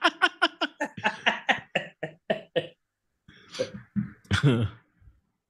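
Hearty laughter: a rapid run of 'ha-ha' pulses, about four or five a second, fading away after two and a half seconds, then a couple of breathy, coughing gasps of laughter near the end.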